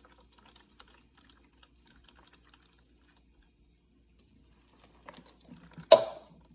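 Hot water trickling and dripping into the iced-up defrost drain passage of a Samsung refrigerator's freezer to clear it, with one sharp, louder hit near the end.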